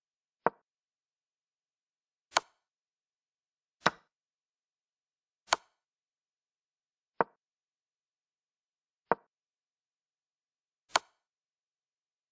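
Chess-board move sound effects: seven short wooden clicks, one for each piece move, spaced about one and a half to two seconds apart. Some of the clicks are sharper and brighter than the others.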